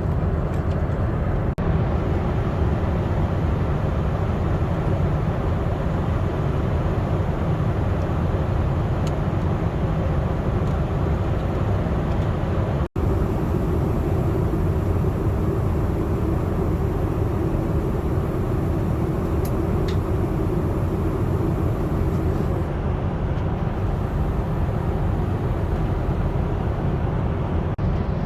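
Steady low rumble of an airliner's cabin noise, the engines and airflow running evenly, broken by two brief dropouts where the clip is cut.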